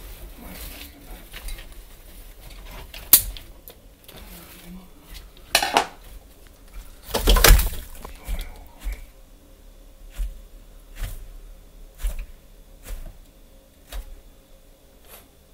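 Argus monitor eating a chick: sharp clicks and knocks, with a few loud clatters in the first half, then single clicks about once a second as the lizard swallows with its head raised.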